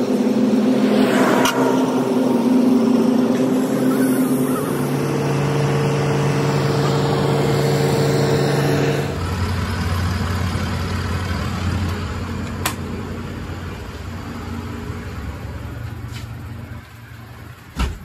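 Diesel engines of road rollers on fresh asphalt running steadily, their engine note shifting about four seconds in. After about nine seconds a lower machinery hum takes over and fades, with a click and then a short knock near the end.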